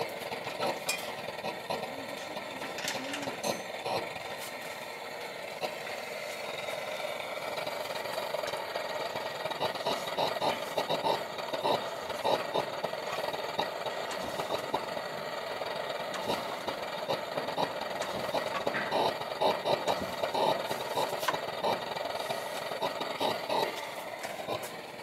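Lanz Bulldog's single-cylinder hot-bulb engine running with a steady rapid knock and rattle, growing louder from about ten seconds in.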